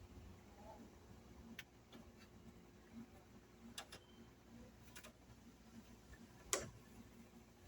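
Near silence with a few scattered faint clicks and light knocks; the loudest knock comes about six and a half seconds in.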